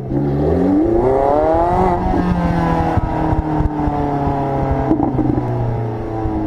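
Porsche 918 Spyder's V8 engine accelerating: the pitch climbs for about two seconds, then falls away slowly and steadily.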